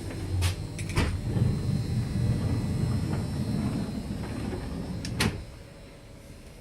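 Passenger-carriage doors on a V/Line train clicking and sliding, over a low rumble that drops away after a final click about five seconds in, as a door shuts.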